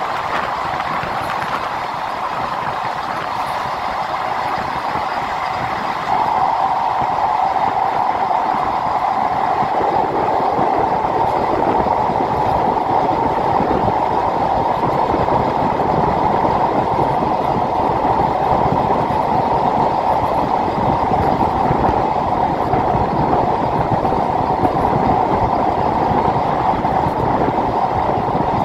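Broad-gauge commuter train running on ballastless slab track along an elevated viaduct, heard from the coach doorway: a loud, continuous rumble of wheels on rail with a steady ringing hum. This loud running noise comes from the ballastless track, and it steps up in loudness about six seconds in.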